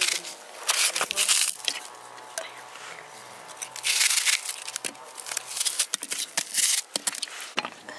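Knife crunching through a raw peeled onion, cutting it into wedges, in three main crisp bursts with smaller clicks between.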